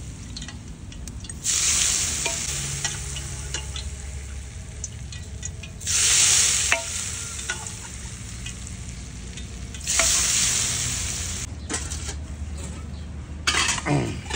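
Smoking-hot mustard oil ladled onto raw mutton and spices in a metal pot, sizzling in three loud hissing bursts, one for each ladleful, each dying down over a second or two. There are a few small clinks between the pours.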